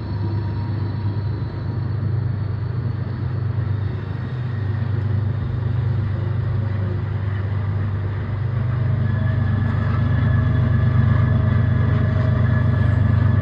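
Diesel helper locomotives at the rear of a loaded CSX coal train pass with a steady low engine rumble that grows louder about nine seconds in.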